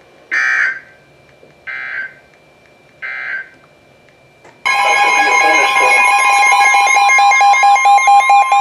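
Three short bursts of NOAA Weather Radio SAME digital data screech, about a second apart, the end-of-message code that closes a warning. About five seconds in, a loud weather-radio alert alarm starts: a steady tone near 1 kHz with a warbling, stepping electronic pattern over it, signalling the next warning.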